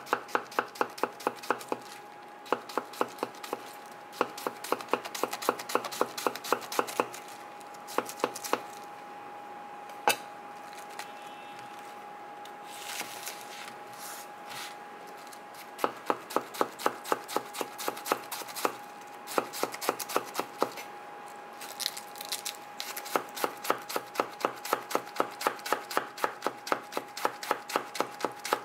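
Red cabbage being finely shredded with a long kitchen knife: quick runs of crisp knife strokes onto the cutting board, about five a second, broken by a few short pauses, over a faint steady hum.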